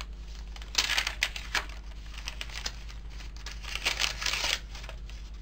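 Paper pages of a handmade journal rustling as they are turned and handled, in two louder bursts: one about a second in and another around four seconds.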